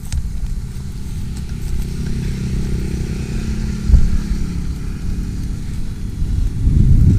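A motor vehicle engine running steadily, growing louder near the end as it comes closer. There is a short low thump about four seconds in.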